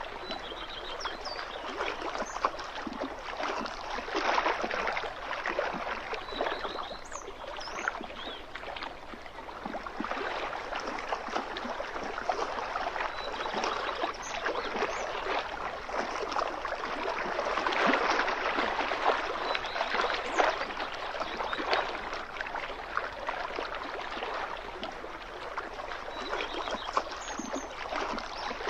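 Small waves lapping and gurgling against a lakeshore: a steady splashing wash full of tiny plops, swelling a little now and then.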